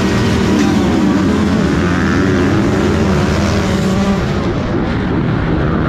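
A gate-full of motocross bikes at full throttle, pulling away from the start, with the rider's own Yamaha YZ125 two-stroke nearest and loudest. The engine note holds high and steady for about four seconds, then wavers.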